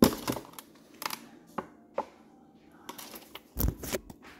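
Plastic stirrer knocking against a plastic cup while stirring lemonade: sharp clicks and taps about every half second, then a cluster of knocks and rustling handling noise near the end.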